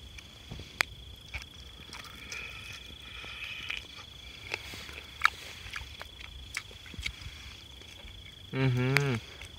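A person biting and chewing cooked chicken held in the hand, with scattered soft clicks and smacks, over a steady high insect trill. Near the end comes a short hummed "mmm" with a wavering pitch, the loudest sound.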